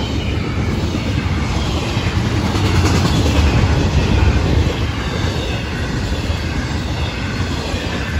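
Intermodal freight cars, double-stack containers and trailers on flatcars, rolling past close by: a steady loud rumble of steel wheels on the rails.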